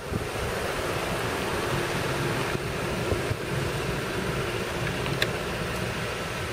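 Steady rushing wind noise buffeting the microphone while moving along a street, with a low rumble underneath and a short click about five seconds in.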